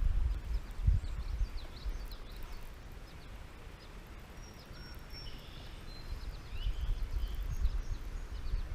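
Outdoor ambience: many faint, short, high chirps from birds or frogs. Under them is a low rumble, stronger near the start and again toward the end, with a few dull thumps.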